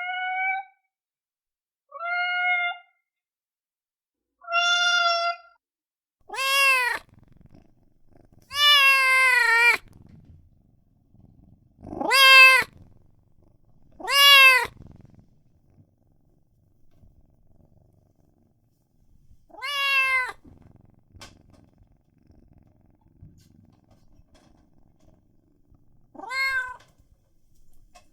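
Newborn kitten crying: a series of about nine high, thin mews a few seconds apart. The first three are short and hold one pitch; from about six seconds in the cries are louder and rise and fall in pitch, one of them drawn out.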